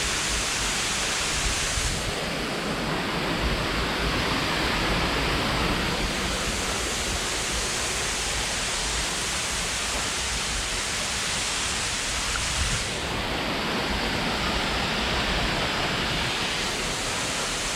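A waterfall's water pouring down in a steady, unbroken rush.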